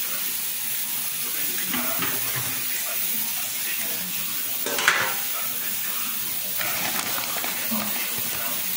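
Steady hissing noise with faint handling sounds on a kitchen counter, and one sharp clack about five seconds in.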